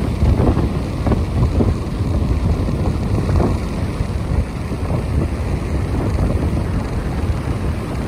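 Wind buffeting the microphone outdoors: a steady low rumble with a few stronger gusts in the first few seconds.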